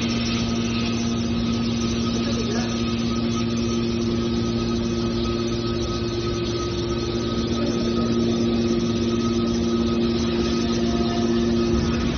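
Scrap metal baling machine running with a steady mechanical hum from its hydraulic power unit, holding one even pitch throughout.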